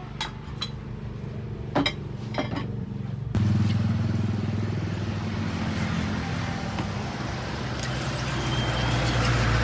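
Car engine running steadily, with a few light clinks in the first three seconds; the engine sound gets suddenly louder a little over three seconds in.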